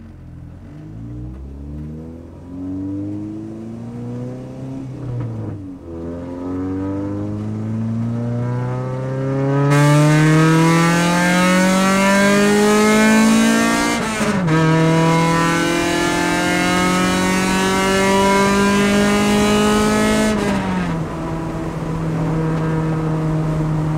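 Straight-piped Honda B20 VTEC four-cylinder with 2.5-inch exhaust accelerating hard through the gears, heard from inside the cabin. The engine pitch climbs, drops at a shift about six seconds in, climbs again and turns louder and harsher about ten seconds in, and drops at another shift near fourteen seconds. It then falls off about twenty seconds in and settles to a steady cruise.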